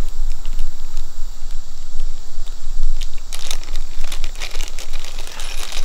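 Small plastic hardware bags crinkling as they are handled and opened, thickest from about three seconds in. A steady low hum runs underneath.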